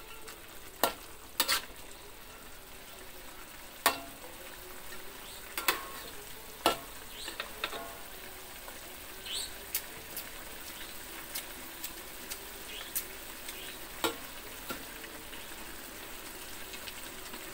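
Stir-fry of green eggplant and anchovies sizzling in a metal wok, with a metal spatula scraping and clinking against the pan now and then.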